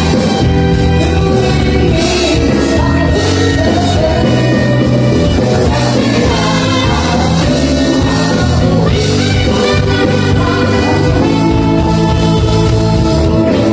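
Live band playing a song with a lead singer over amplified bass and other instruments.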